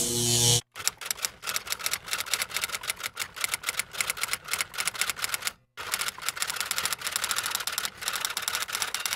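A steady motorcycle engine note cuts off about half a second in, then rapid, irregular clicking like keys being typed, broken by a short gap about halfway through.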